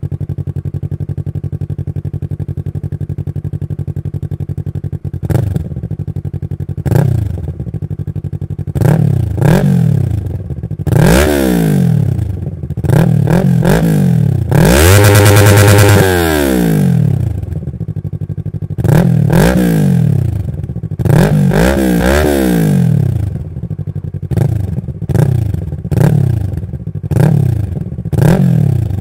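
Yamaha R3's 321 cc parallel-twin engine running loud through an M4 Street Slayer full exhaust system with the baffle in. It idles steadily for about five seconds, then is revved in a series of quick throttle blips that rise and fall in pitch, with one longer rev held high about halfway through.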